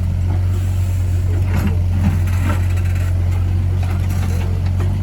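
Excavator's diesel engine running steadily with a low hum, with scattered knocks and scrapes from the work.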